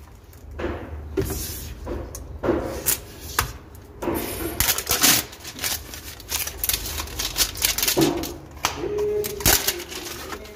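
Steel ball-bearing drawer slide being unwrapped and handled: irregular clicks and metallic rattles from the rails, with the paper wrapping rustling about halfway through.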